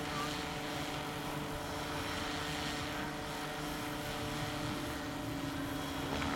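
Electric scale model AS350 Ecureuil helicopter hovering low as it settles toward a landing, its rotor running with a steady, even whine.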